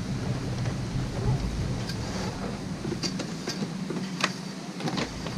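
Wind buffeting the microphone in a low rumble that eases for a moment past the midpoint, with a few light clicks and knocks in the second half.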